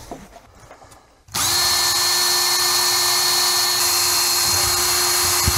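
Power drill fitted with a quarter-inch bit running at a steady, even speed, starting about a second in and drilling a small guide hole through wood and aluminium sheeting.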